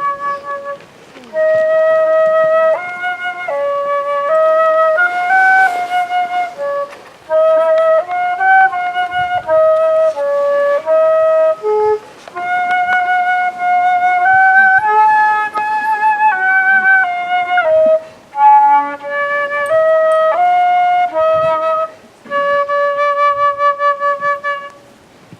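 A solo flute plays a slow melody: one line of held notes that step up and down, in phrases broken by short pauses.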